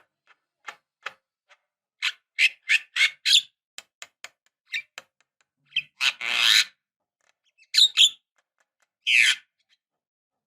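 Javan myna calling in a string of short, harsh chattering and squawking notes. A quick run of four notes comes about two seconds in, a longer rasping call around six seconds, and a few more sharp notes follow.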